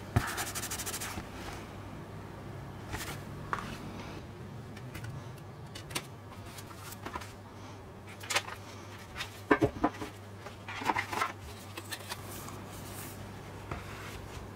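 Gloved hands handling a Blu-ray package: a sharp click at the very start, then scattered taps, knocks and slides of a plastic disc case, cardboard and paper booklets on a table. A steady low hum runs underneath.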